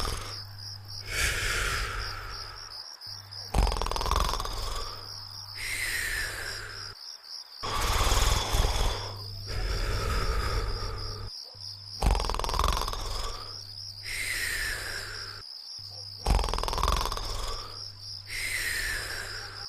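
Cartoon snoring in a slow, regular cycle, about every four seconds: a loud rasping snore, then a whistling breath out that falls in pitch. Crickets chirp steadily behind it.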